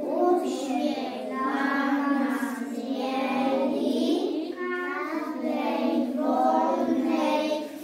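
A group of young children singing together in unison, phrase after phrase with held notes.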